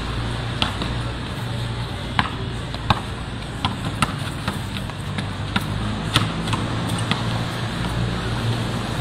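Basketball bounced on a concrete court: a string of sharp bounces at uneven spacing, about one or two a second, over a steady low hum.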